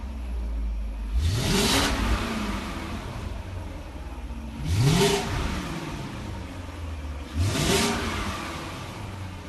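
BMW E38 7 Series engine idling and revved in three short blips about three seconds apart. Each blip rises quickly in pitch and falls back to idle.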